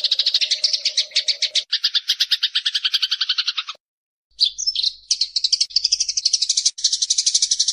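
Eurasian tree sparrows' agitated fighting chatter: rapid, evenly repeated chirps at about nine a second, in two long runs with a short break about halfway.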